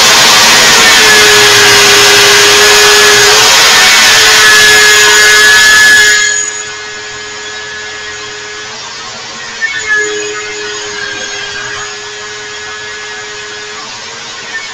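Bench-clamped electric drill spinning a wire wheel brush with a steady motor whine, while a small steel piece is pressed against the bristles with a loud scratchy brushing noise. About six seconds in the brushing noise drops off sharply, leaving the drill running with lighter scrapes, a couple of them louder near ten seconds.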